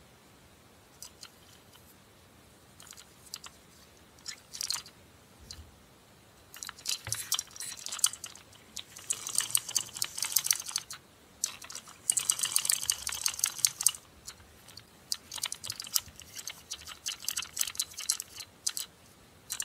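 Small plastic toy ambulance clicking and rattling as it is handled and pushed along a table: two dense runs of rapid clicks in the middle, with scattered light plastic clicks before and after.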